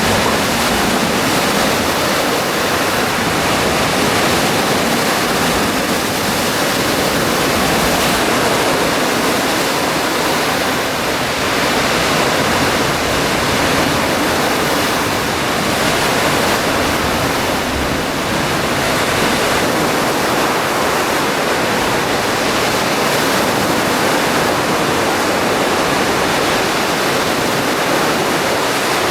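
Black Sea surf washing onto the beach: a steady, loud rush of breaking water that swells and eases slightly.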